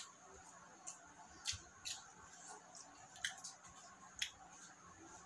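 Eating by hand with the mouth close to the microphone: about six short, sharp wet smacks of chewing and picking at food, roughly one a second, over a faint steady high whine.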